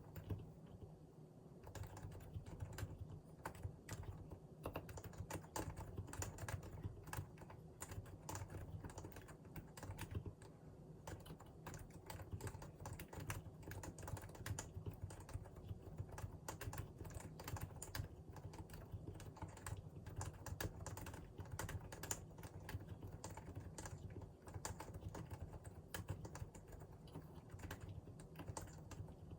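Continuous typing on a Realforce R2 PFU Limited Edition keyboard with Topre electrostatic capacitive switches: a steady, dense stream of keystrokes.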